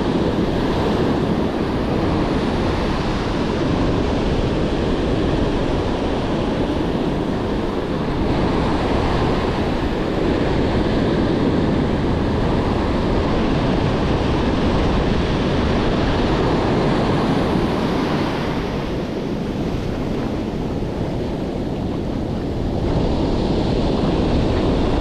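Ocean surf washing steadily onto a beach, with wind buffeting the microphone. It eases slightly for a few seconds about three-quarters of the way through.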